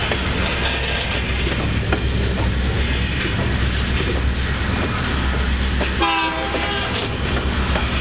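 Freight train of tank cars and covered hopper cars rolling steadily past, a continuous low rumble and rattle of steel wheels on rail. About six seconds in, a short pitched tone sounds for under a second.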